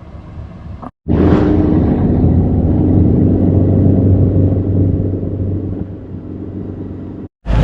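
Motor vehicle running with a steady low rumble of engine and road noise, cut in abruptly about a second in and cut off just before the end.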